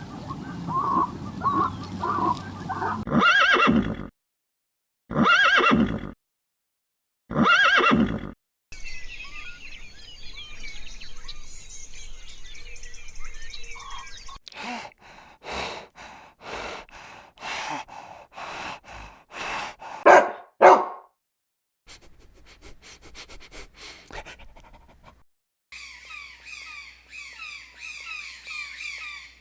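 A sequence of different animal calls cut one after another. Three loud, separate drawn-out calls come about two seconds apart. High chirping follows, then a quick run of about a dozen short calls, and high twittering near the end.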